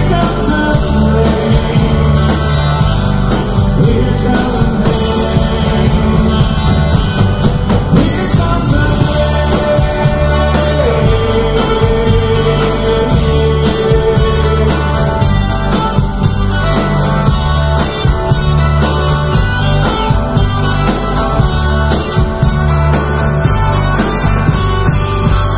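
Live country-rock band playing loud and full: strummed acoustic guitars, electric twelve-string guitar, upright bass and drum kit, with a lead voice singing over it.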